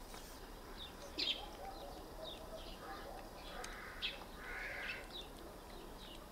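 Small birds chirping, short high falling chirps repeating every half second or so, one louder chirp about a second in.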